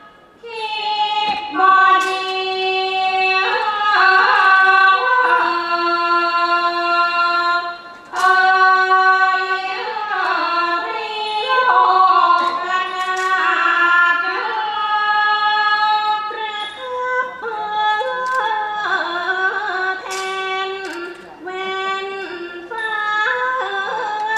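A female singer sings a Thai classical song for a dance-drama, holding long, wavering notes that slide between pitches, with a few sharp clicks.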